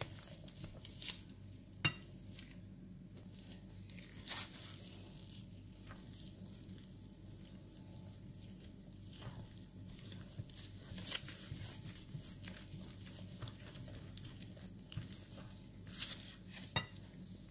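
Spatula stirring flour into an egg-and-sugar batter in a glass bowl: faint scraping, with occasional sharp clicks of the utensil against the glass.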